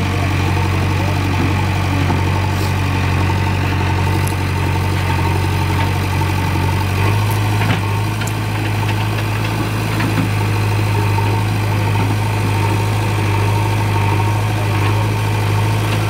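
JCB backhoe loader's diesel engine running steadily while the backhoe arm digs. About seven seconds in, the engine note steps up slightly and holds there.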